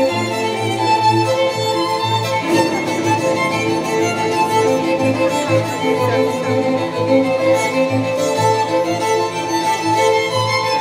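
Soundtrack music for a light show: a bowed-string melody of held notes over a pulsing bass.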